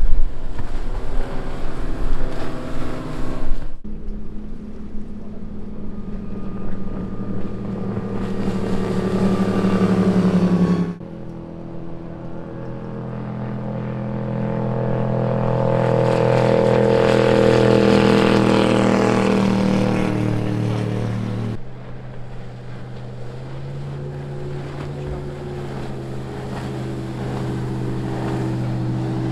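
High-performance powerboats running at speed with a steady engine drone. The sound changes abruptly three times. In the middle, one boat's engine noise builds, peaks and fades as it passes. Wind buffets the microphone in the first few seconds.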